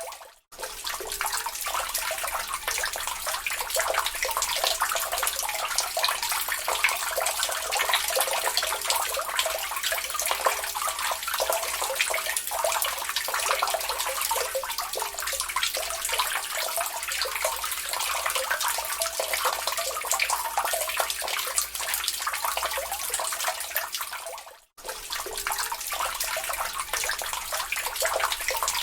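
Water dripping and trickling into a lake, a dense, steady patter of small splashes. It cuts out for a split second twice, just after the start and again about 25 seconds in.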